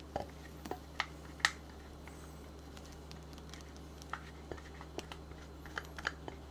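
Egg-yolk batter pouring in a thin stream onto meringue in a glass bowl: scattered small clicks and splats at irregular intervals, the loudest about a second and a half in, over a steady low hum.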